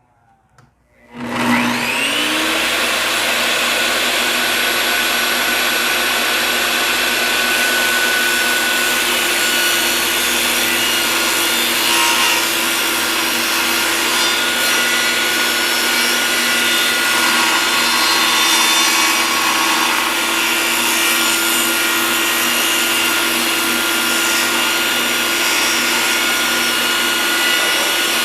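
Bosch GTS 10 J 1800-watt table saw switched on about a second in, its blade spinning up with a rising whine, then running loudly and steadily while rip-cutting 3/4-inch plywood with a 24-tooth blade.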